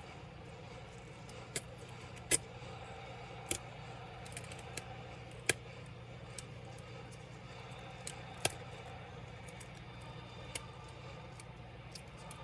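Irregular sharp clicks and light taps of small tools and parts being handled while a laptop is taken apart, about nine in all, the loudest about two seconds in and again past eight seconds, over a steady low hum.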